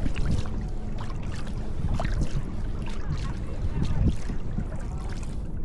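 Water splashing and dripping around a kayak, with many small irregular splashes over a steady low rumble.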